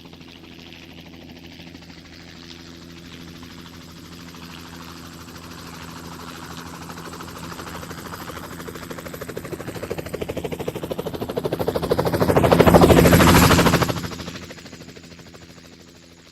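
Helicopter flying past: rapid rotor-blade chop over a steady engine hum, growing louder as it approaches with a whine rising in pitch. It is loudest about thirteen seconds in, then fades away fast as it moves off.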